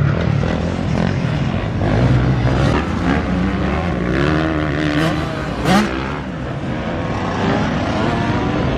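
Motocross bike engine running hard and revving, its pitch climbing and dropping over and over, with a sharp rev about two-thirds of the way through.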